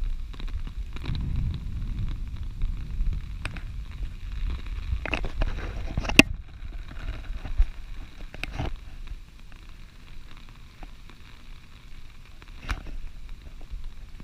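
Steady rain falling, with gusty wind rumbling on the microphone and a few sharp taps, the loudest about six seconds in. The rumble eases in the second half.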